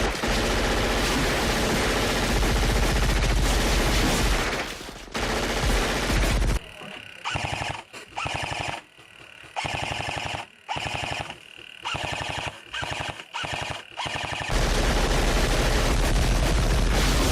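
Airsoft guns firing full-auto to lay down suppressive fire. There is a long continuous stream of rapid shots for about six seconds, then a series of short bursts with pauses, then continuous fire again near the end.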